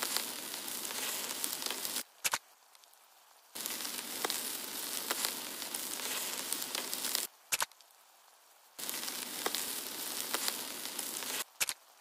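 A crackling, sizzling sound effect in three stretches of about three seconds each, with a short sharp click after each stretch. It goes with an animated knife scraping worms out of a wound.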